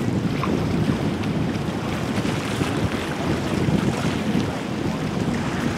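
Wind buffeting the microphone over the low, steady rumble of a motor yacht under way and the wash of water in the inlet.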